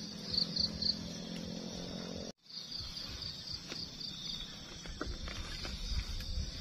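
Insects chirping steadily in quick pulses, about four or five a second. The sound drops out for an instant about two seconds in. After that, a few light clicks and rustles come from camping gear being handled at the tent.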